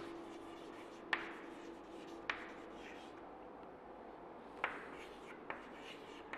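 Chalk writing on a blackboard: faint scratching strokes with four sharp taps as the chalk strikes the board.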